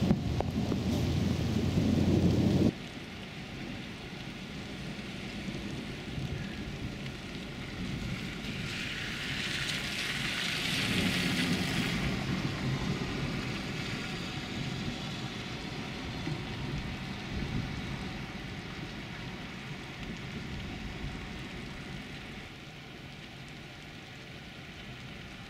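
Steady rain falling on a flooded street, with a brighter hiss of tyres swishing through standing water from about nine to twelve seconds in. It opens with a loud low rumble that cuts off sharply about three seconds in.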